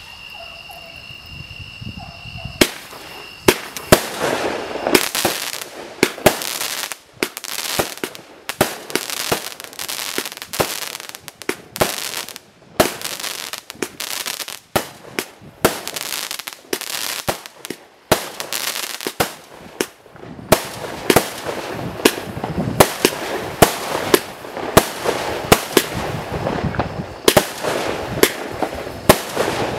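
A multi-shot consumer firework firing shot after shot from about two and a half seconds in: an uneven, rapid string of sharp pops and bursts with hissing between them.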